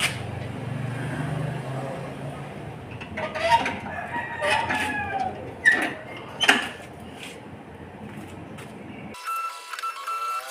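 Chickens calling, with several loud rooster-like calls between about three and seven seconds in. Near the end, background music cuts in abruptly.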